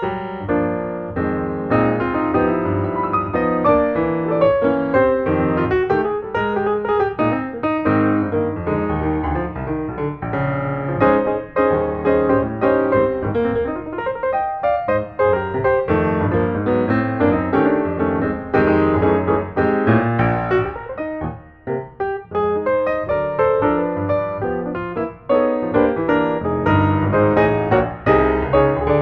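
Background piano music, many quick notes over a fuller lower accompaniment, with a brief dip about two thirds of the way through.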